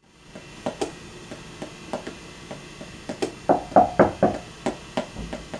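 A series of irregular knocks and taps, about three a second, loudest in a cluster a little past halfway.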